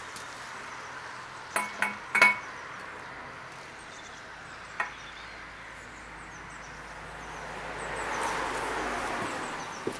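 Steel tools clinking against the differential casing as the heavy pinion-nut socket and spline tool are fitted: a quick cluster of sharp metallic clinks about two seconds in, and one more single clink near the middle.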